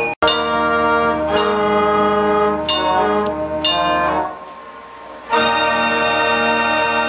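Automated mechanical music machine playing organ- and brass-like tones, with a few sharp percussive hits. The music cuts out for an instant just after the start, thins out for about a second past the middle, then comes back at full level.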